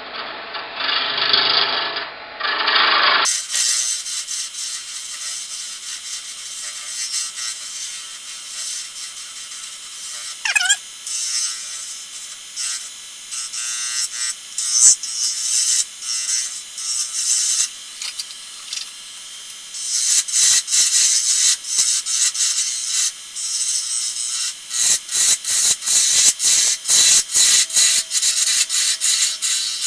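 A small lathe tool cutting deer antler spinning at high speed, a steady scraping hiss with a brief squeal about ten seconds in. Near the end comes a rapid run of short, repeated scraping strokes.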